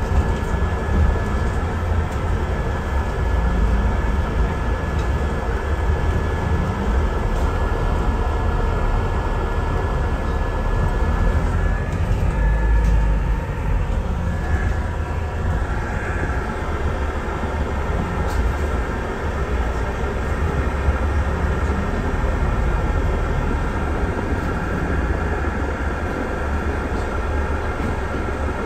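The cabin of a moving double-decker bus heard from its upper deck: a steady, heavy low rumble from the engine and road, with a thin high whine above it that is strongest in the first half.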